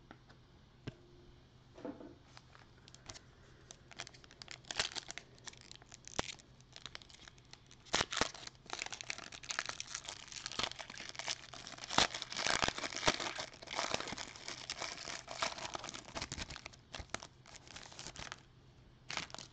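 Foil trading-card pack wrapper, a 2020 Panini Prizm football pack, being torn open and crinkled by hand: irregular crackling and tearing, sparse at first and thickest in the second half, stopping shortly before the end.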